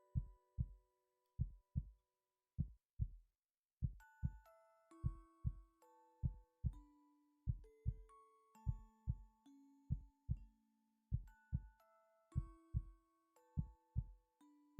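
A human heartbeat: regular low lub-dub thumps in close pairs. A soft melody of sustained notes plays over it and drops out for about a second and a half a couple of seconds in.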